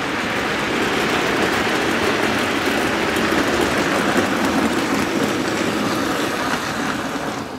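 Hornby Silver Seal tender-driven OO-gauge model steam locomotive running with a train of coal wagons, the motor and wheels making a steady rumble on the track. It grows louder as the locomotive passes close, then fades near the end.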